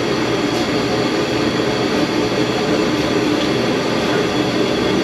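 Shop heater running steadily, a constant rushing hum with no breaks.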